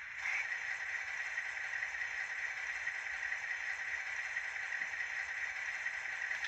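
Sound decoder of a Fleischmann N-gauge DR BR 112 (ex-V100) diesel model playing its diesel engine running sound at standstill through the tiny onboard speaker: a steady, thin, hissy sound. It dips briefly right at the start, then holds even.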